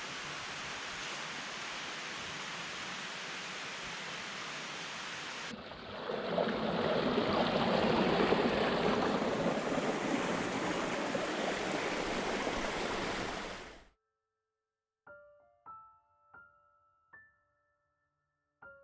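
Steady rushing noise that cuts abruptly to a louder, fuller rush about five seconds in and stops dead near fourteen seconds. A short silence follows, then slow, single piano notes begin.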